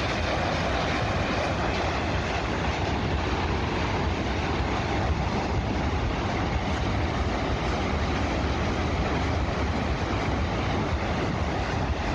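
Multiple rocket launchers firing a salvo, rockets leaving in quick succession: one continuous rushing noise over a heavy low rumble, with no separate shots standing out.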